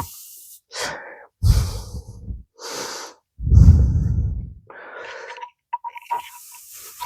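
A person breathing hard in heavy, separate puffs, straining with effort while working a stuck part out of a transmission.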